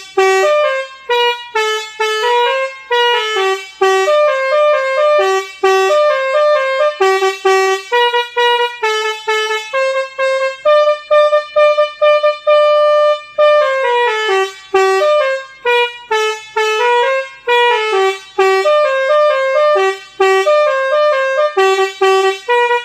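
DAV telolet bus-horn module playing tune number six: a quick melody of short horn notes, with a run of longer held notes in the middle.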